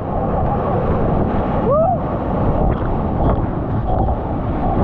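Steady, heavy rushing roar of a waterfall. A short rising-and-falling call is heard about two seconds in.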